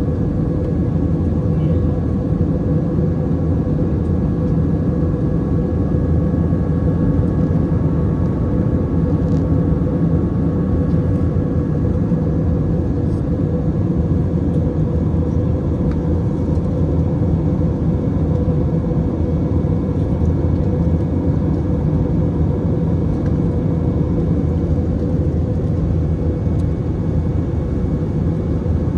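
Airliner cabin noise in flight: a steady, deep drone of jet engines and rushing air, with a faint steady whine above it.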